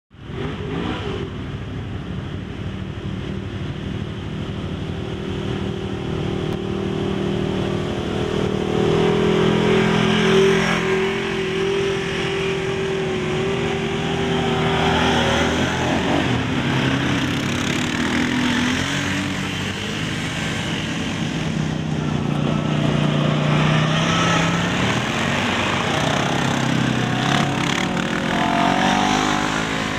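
Engines of several ATVs and side-by-side UTVs driving past one after another on a dirt trail. Their engine notes overlap and drift up and down, swelling as each machine comes close.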